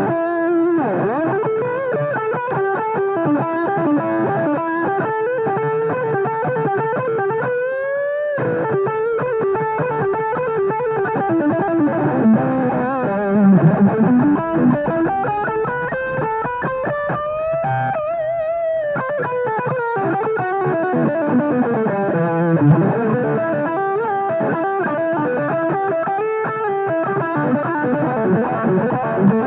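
Epiphone ES-335 Dot semi-hollow electric guitar played through an amplifier: a continuous single-note lead line, with notes bent or slid upward about eight seconds in and again around seventeen seconds.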